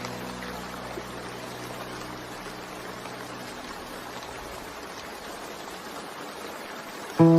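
Steady rain ambience between lo-fi tracks, with the low notes of the previous song fading out over the first few seconds. Near the end a new track starts abruptly with loud chords.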